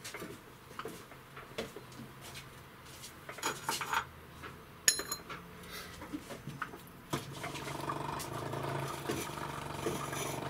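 Metal parts and tools clinking and knocking while a suspension arm and bushing are set up in a press, with one sharp ringing metallic clink about five seconds in. A steady machine hum starts about seven seconds in.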